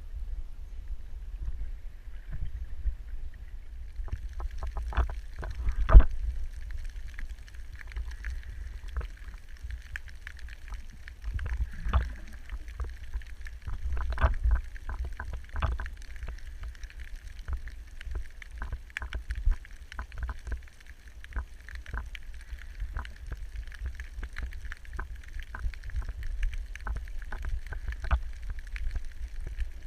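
Underwater recording through a camera housing: a steady low rumble of water moving against the housing, with scattered sharp clicks and crackles throughout, the loudest about six seconds in.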